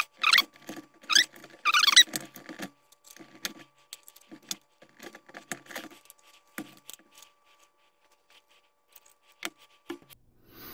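Hard plastic parts of a quadcopter body and a clip-on camera mount squeaking and creaking as they are pressed and twisted together by hand, followed by scattered small clicks and taps as the mount's arms are snapped into place.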